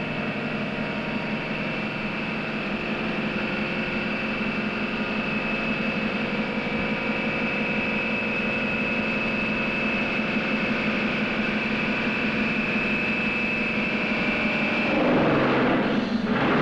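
Super-speed tire test wheel spinning an ordinary tire against a large drum: a steady mechanical whine and hum that slowly grows louder as centrifugal force builds heat and distortion in the tire. About fifteen seconds in, the whine cuts off and a louder rush of noise takes over as the tire blows apart.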